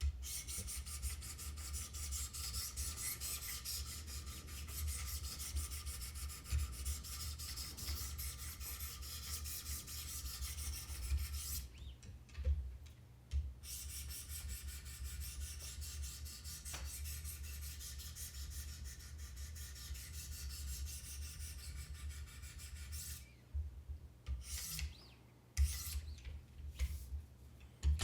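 600-grit sharpening stones on a Wicked Edge guided sharpener stroking along the edge of a CPM-M4 steel knife blade: a fast, continuous rasping scrape. There is a pause about halfway through, and a few knocks near the end.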